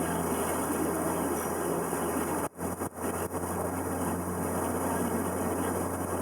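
River tour boat's engine running steadily, a low hum under a wash of noise. The whole sound drops out sharply for a moment about two and a half seconds in, and again briefly just after.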